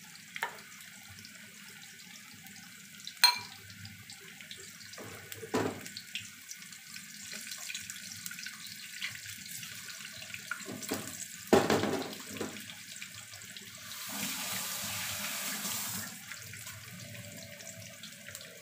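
Battered tempe mendoan deep-frying in a wok of hot oil: a steady sizzle with scattered pops and a few sharp knocks. The sizzle grows louder for about two seconds near the end.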